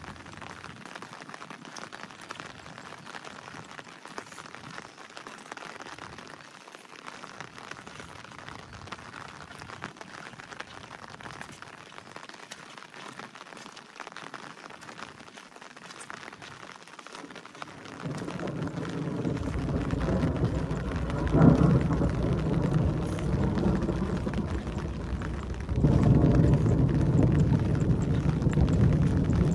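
Heavy rain falling in a steady hiss. About two-thirds of the way in, a deep rumble of thunder rolls in and grows loud, with a sharp crack a few seconds later and a louder surge near the end.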